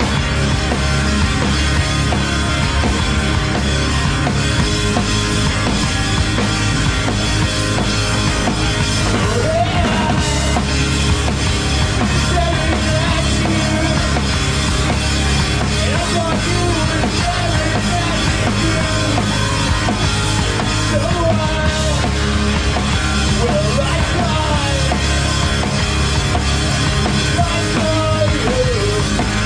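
Emo-punk band playing live at full volume: drum kit, guitars and bass, with a singing voice coming in about ten seconds in.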